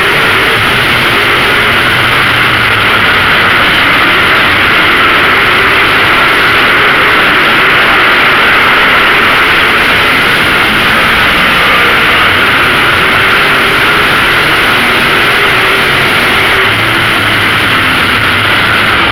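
Lightning Late Model race cars' engines running at speed during a race, loud and continuous, with the engine pitch wavering up and down as the cars circulate.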